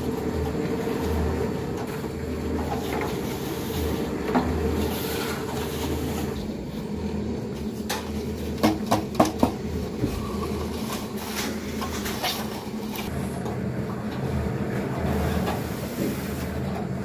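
Drum concrete mixer running with a steady mechanical drone, with a quick run of about four sharp knocks near the middle.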